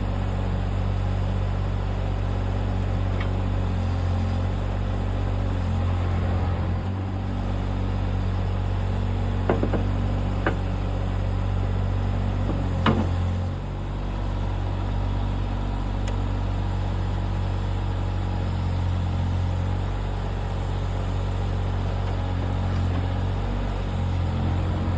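Backhoe loader's diesel engine running steadily at low revs, with a few short metallic clanks in the middle.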